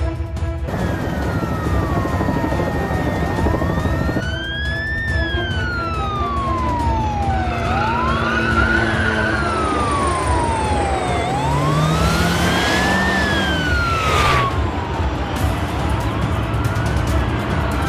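Police car siren wailing, its pitch sweeping up and down in slow cycles of about four seconds, over the low rumble of a vehicle engine.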